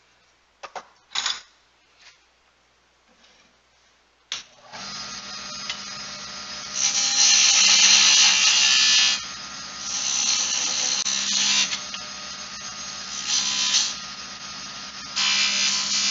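A few knocks of a wooden spindle being handled and set down. Then a Jet wood lathe switches on with a click and runs with a steady hum. From about two seconds later, a turning tool is pressed into the spinning spindle in four passes of loud hissing cutting, light corrective cuts to move a detail on the spindle.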